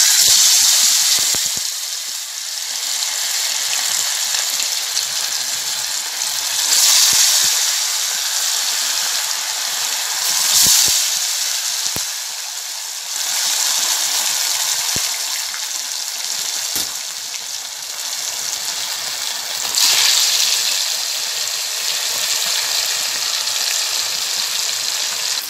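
Marinated barramundi (kodua) pieces deep-frying in hot oil in a pan, sizzling loudly and continuously. The sizzle swells at the start and about three more times as more pieces are slipped into the oil one by one.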